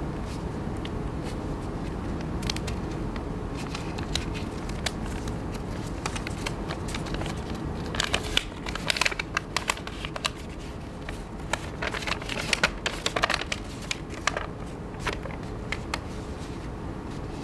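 Sheet of paper rustling and crinkling as a letterlocked letter is unfolded along its creases, the crackles thickest in the middle stretch. A steady low hum lies underneath.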